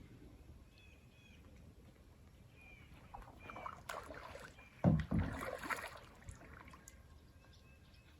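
Water sloshing around a small paddled craft, with paddle strokes and a heavy knock about five seconds in.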